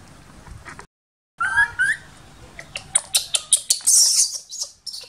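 Baby macaque squealing: two short gliding squeals, then a fast run of shrill, sharp chirping cries.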